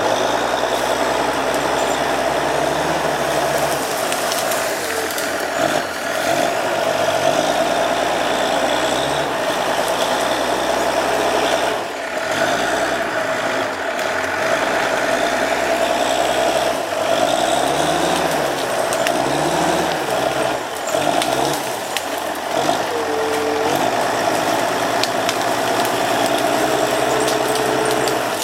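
Timberjack skidder's diesel engine working under load, its revs rising and falling again and again.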